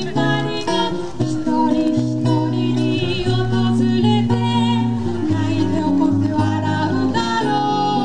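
A live song: a woman singing held notes, some with vibrato, over a plucked guitar accompaniment.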